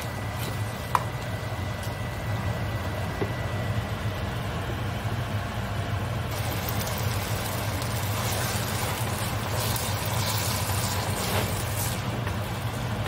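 Glass noodles stir-frying in sauce in a pan: a steady low hum under a sizzle that grows louder about six seconds in. A metal spoon clinks on the pan near the start and again about a second in.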